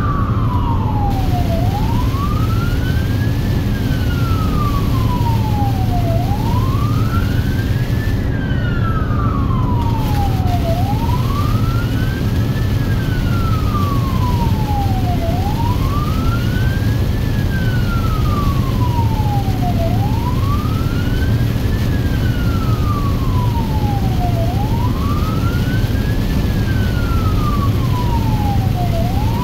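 Emergency vehicle's wail siren running code 3, heard from inside its cab. The pitch sweeps slowly up and down, each cycle about four and a half seconds long, over steady low engine and road noise.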